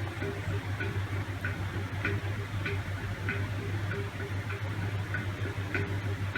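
Light, evenly spaced ticks, about three every two seconds, over a steady low hum.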